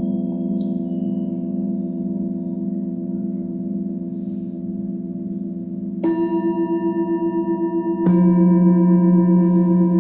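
Struck metal sound-healing instruments ringing with a long sustain. Fresh strikes land about six and eight seconds in, each louder and adding new tones, and the overlapping tones beat in a slow, even wobble.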